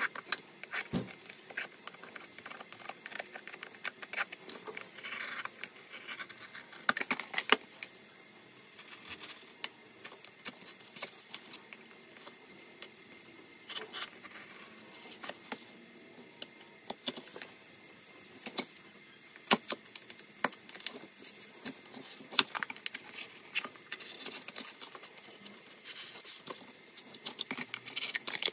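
Utility knife blade cutting and scoring thin white cardboard, giving irregular scratchy clicks and scrapes as the blade is worked along a marked outline.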